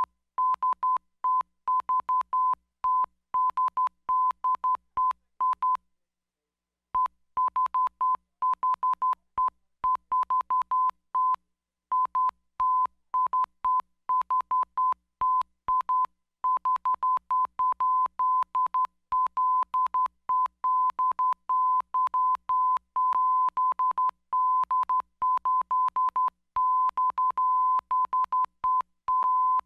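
Morse code beeps on a single steady high tone, sending the SOS distress signal (three short, three long, three short) over and over in quick short and long beeps. There is a pause of about a second about six seconds in.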